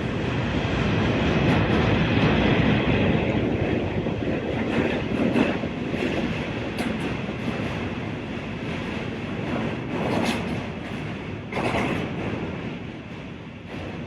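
New York City subway Q train running over track, a steady rumble of wheels on rails with a high whine and scattered clicks from the rail joints.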